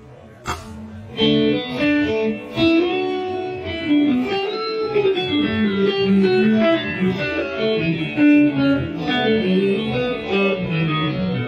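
Electric guitar playing a quick single-note lick in E Dorian, mixing palm-muted notes with slides, bends, hammer-ons and pull-offs. A couple of light clicks come first, and the playing begins about a second in.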